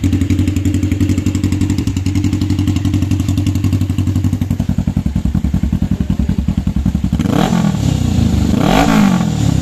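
Suzuki GS500's parallel-twin engine idling loudly through an unbaffled silencer, giving a straight-pipe exhaust note. About seven seconds in, the throttle is blipped twice, the revs rising and falling each time.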